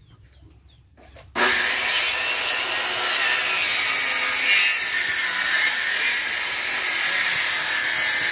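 Electric hand planer switching on about a second in and then running steadily as it is pushed along a wooden plank, shaving its surface.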